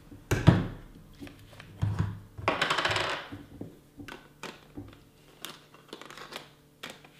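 Clicks, knocks and light rubbing of a Tamron zoom lens being twisted off one Canon DSLR body and handled for mounting on another. The sharpest knock comes about half a second in, a quick run of fine clicks lasts about half a second around two and a half seconds in, and softer clicks follow.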